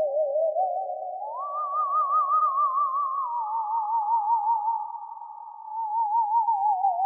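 Sampled theremin from the NADA library played dry, without its dream pad: a single singing tone with a steady vibrato that glides up about a second in, then slides down in two steps later on.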